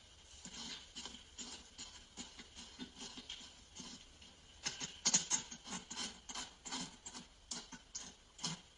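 Rapid, irregular wet sucking and slurping sounds of simulated oral sex, artificially created for the recording. They grow louder and quicker about halfway through.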